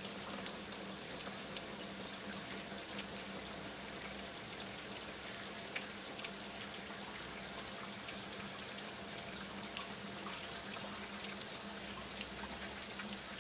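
Steady rain falling, with many small drops ticking throughout and a faint low hum underneath.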